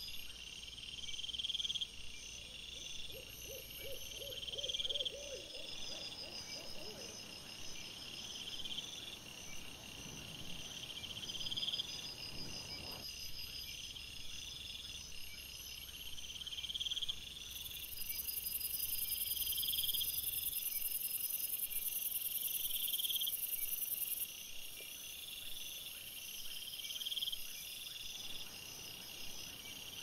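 Crickets chirping at night: a high chirp repeating about every second and a half, with fainter high trills running over it.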